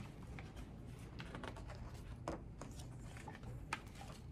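Pages of a hardcover picture book being opened and leafed through: faint paper rustles and a few soft ticks.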